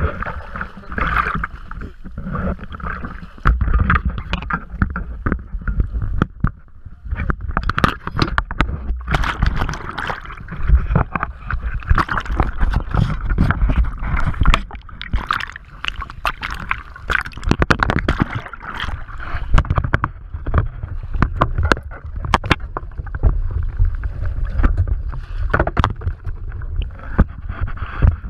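Choppy sea water sloshing and slapping against a boat's hull at the waterline, with irregular sharp splashes and knocks throughout. Muffled underwater gurgling comes in when the waves wash over the camera.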